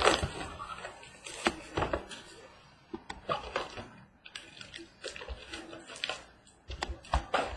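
Irregular rustles, clicks and taps of a trading-card box and its wrapper being handled and opened.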